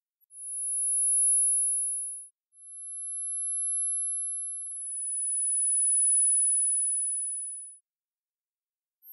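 Synthesized very high-pitched pure sine tones for tinnitus neuromodulation. There are three tones in turn, each at a slightly different pitch, each swelling in and fading out over two to three seconds, with the last two overlapping briefly.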